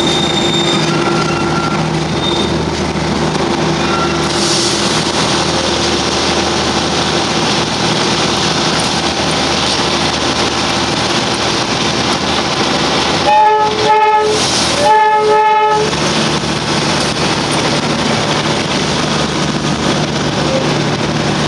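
Darjeeling Himalayan Railway toy train running along the track, heard from inside a coach as a steady rolling rumble and rattle. About two-thirds of the way in, the horn sounds twice in short blasts about a second and a half apart.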